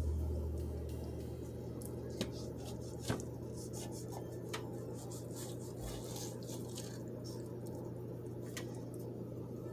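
Kitchen knife cutting through a baked puff-pastry-wrapped apple on a metal baking sheet: the flaky pastry crackles and the blade clicks against the pan a few times, over a steady low hum.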